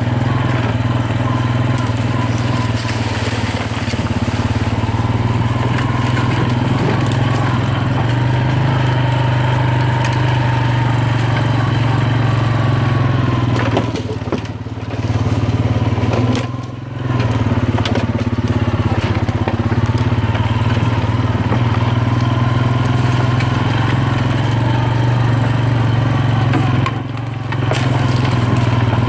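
ATV engine running steadily while riding a leaf-covered woods trail, its note dropping briefly three times, about halfway through, a little after that and near the end. Crunching and crackling of dry leaves and sticks under the tyres.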